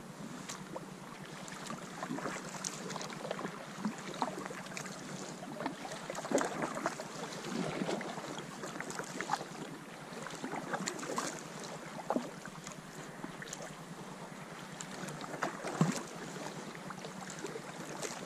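Paddle strokes dipping and splashing in the water as a small inflatable boat is paddled, the splashes coming irregularly every second or so.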